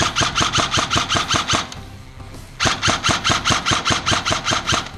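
Airsoft rifle fired from the shoulder in two bursts of rapid, evenly spaced shots. The first burst is already going at the start and stops a little before two seconds in; the second starts about half a second later and runs until near the end.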